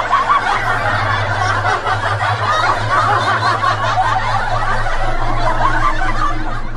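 A crowd of many people laughing at once, steady and continuous, with a low hum underneath.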